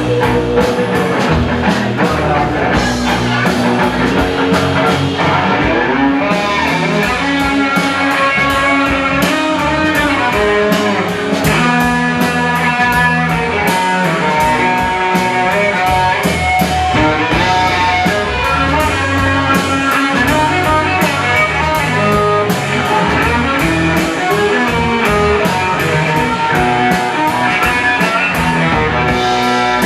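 A band playing a rock-blues instrumental passage: guitar over a steady drum beat, without singing.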